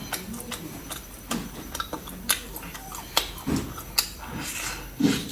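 Close-miked eating: wet chewing with sharp lip smacks and mouth clicks at irregular intervals, several a second at times.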